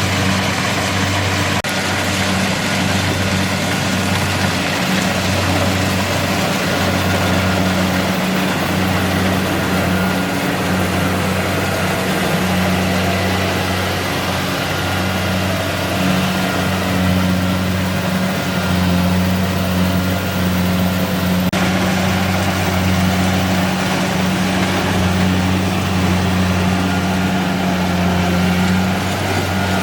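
Kubota DC-70G PRO rice combine harvester's diesel engine running steadily, with the clatter of the machine's drive and threshing gear over it.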